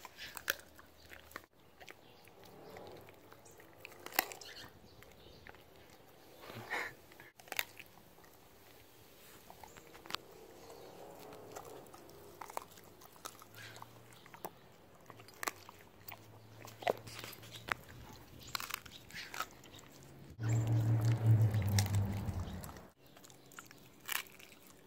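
Siberian husky chewing and biting on a raw chicken foot, with scattered crunches and clicks of teeth on bone; he is chewing it over rather than eating it. Near the end, a louder low hum lasts about two seconds.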